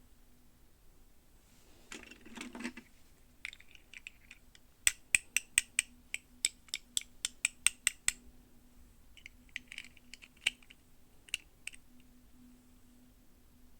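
Handling of plastic toy packaging: a brief rustle, then a quick run of sharp plastic clicks at about four a second, then a few scattered clicks.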